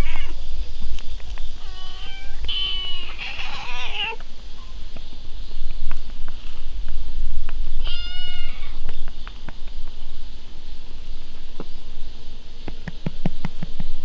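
A cat meowing: three meows in quick succession about two seconds in, then one more a few seconds later.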